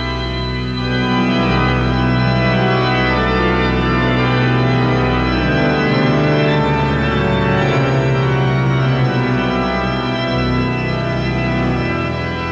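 Organ music playing slow, sustained held chords, moving to a new chord every few seconds.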